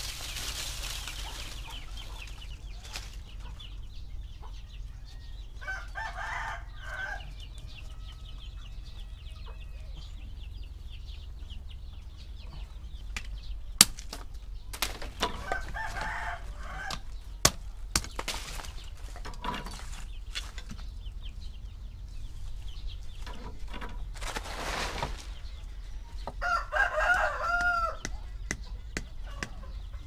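A rooster crows three times: about six seconds in, around sixteen seconds, and near the end. In between, a small hatchet knocks against wood a few times.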